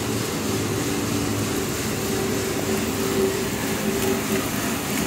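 Uncle John drum coffee roaster running, with its cooling-tray stirring arms sweeping freshly roasted beans around the tray over a steady machine hum.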